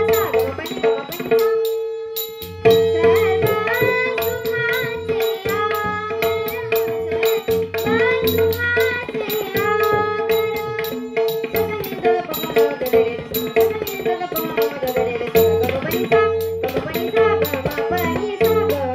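Marathi devotional abhang sung by a girl's voice over tabla, with a held drone note and regular bright metallic ticks keeping time. The music drops out briefly about two seconds in, then resumes.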